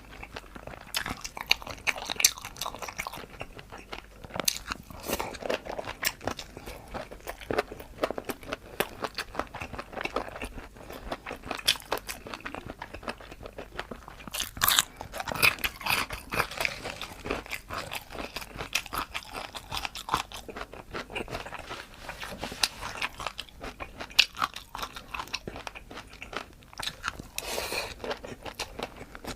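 Close-up crunching and chewing: a person biting into and eating crunchy food, a dense run of quick crackles throughout, busiest about halfway through and again near the end.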